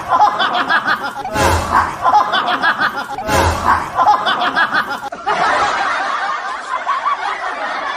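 Laughter, the same burst of laughing coming round about every two seconds, then a longer run of laughter from about five seconds in.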